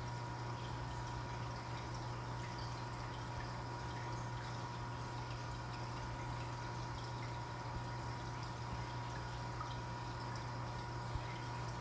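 Aquarium aeration bubbling steadily in a goldfish tank, air rising through the water with small pops and splashes at the surface, over a steady low hum.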